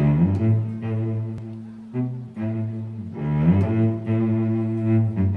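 Background music on low bowed strings, playing long held notes, some entering with a short slide in pitch.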